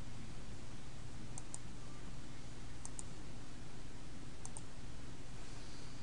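Computer mouse clicking: three pairs of quick clicks, about a second and a half apart, over a steady low hum and hiss.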